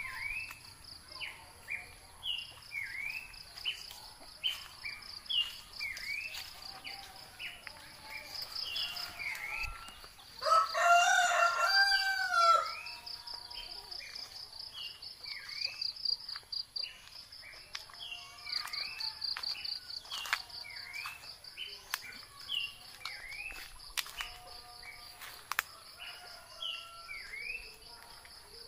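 A rooster crows once, loud and about two seconds long, some ten seconds in. Short chirping calls repeat every second or so throughout, over a steady, pulsing high-pitched insect buzz.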